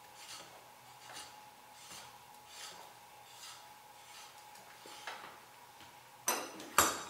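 A steel collet being screwed in by hand: soft rubbing strokes, about one every three quarters of a second, as the hand turns it. Near the end come two sharp metal clanks as steel tools are handled.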